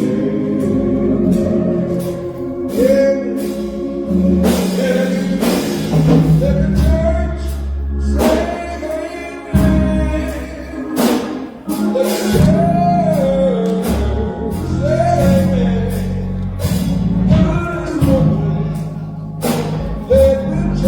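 Gospel music: a sung melody over sustained low keyboard notes, with sharp percussion hits.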